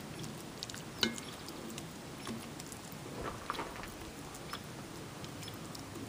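Soft, faint patting and squishing as a bread-and-egg casserole mix is spread and pressed down by hand in a cast iron Dutch oven, with scattered small clicks and one sharper click about a second in, as the metal spoon knocks the cast iron.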